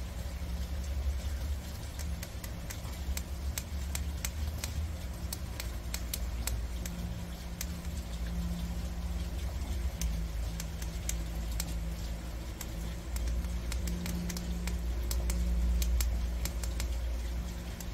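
Prairie dogs gnawing dry, uncooked noodles: a string of small, crisp, irregular crunching clicks, several a second, over a steady low hum.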